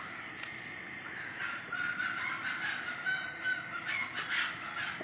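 Chopped vegetables tumbling and rattling from a steel bowl into an aluminium karai. From about a second and a half in, harsh bird calls sound over it, repeating until near the end.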